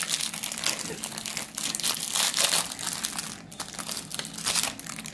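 Plastic wrapper of a trading card pack crinkling and crackling as it is opened and handled.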